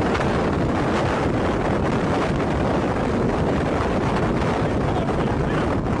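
Strong wind near a tornado rushing over the microphone in a steady, unbroken roar of noise.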